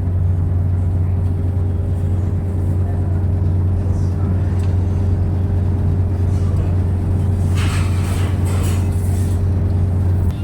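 A steady, loud low mechanical hum of a running motor or engine. About eight seconds in, a short run of clattering, hissing strokes rises over it.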